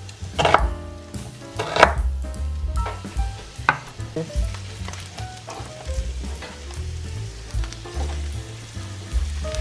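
A chef's knife slicing an onion on a wooden cutting board, a few sharp cuts in the first four seconds, then ground beef sizzling in a frying pan as sliced onion is stirred in with a wooden spoon. Background music with a low bass line plays underneath.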